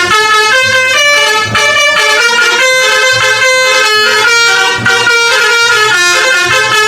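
Bus 'telolet' horn: a multi-tone horn playing a quick tune of short held notes, with a low beat beneath.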